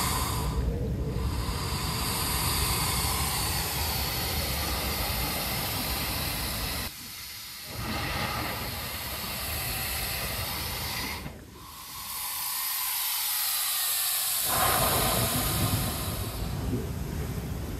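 A sea blowhole in lava rock hissing and whooshing as surf forces air and spray up through the hole, mixed with crashing surf. The rush cuts off abruptly about seven seconds in for a moment, and again for about three seconds near the middle, then surges back as the next wave drives through.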